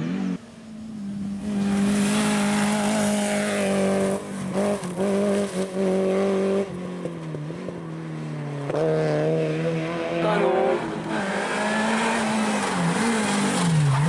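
Renault Clio RS N3 rally car engines at high revs on a stage, the note held high and then dropping and climbing again several times through gear changes and corners, across a few passes joined by cuts.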